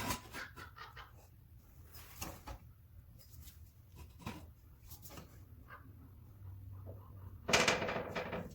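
Scattered clicks and knocks of tools being handled, then about a second of rapid rattling hammering from an impact wrench near the end, used to spin off a lug nut while the wheels come off.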